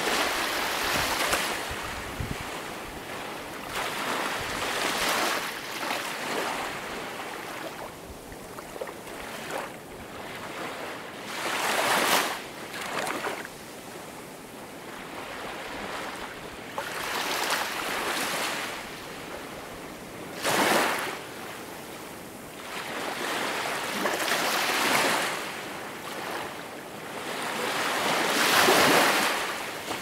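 Small waves breaking on a pebble beach. A rush of water swells and fades every three to five seconds as each wave washes up over the stones.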